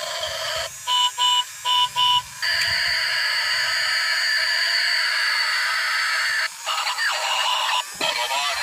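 Battery-powered transforming robot-car toy playing electronic sound effects through its small speaker: four short beeps about a second in, then a long steady electronic tone for several seconds as it changes from robot back into a car, followed by more warbling electronic effects near the end.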